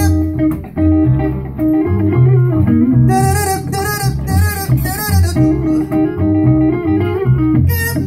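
Live band music with a prominent bass line and plucked strings under a man's singing voice, which holds wavering notes about halfway through.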